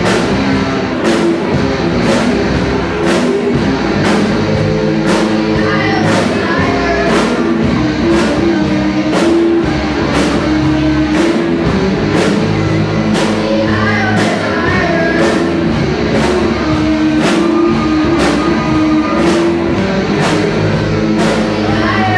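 A children's rock band playing live, with electric guitar, bass guitar and drum kit on a steady beat of about two strokes a second, and a voice singing over it.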